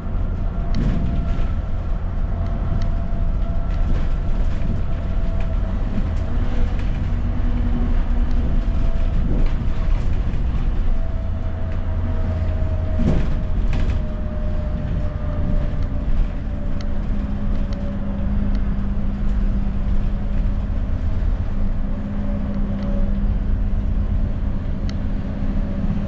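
Inside an ADL Enviro400 double-decker bus under way: steady low engine and road rumble with a whine that slowly falls in pitch midway, and a few sharp knocks and rattles from the body.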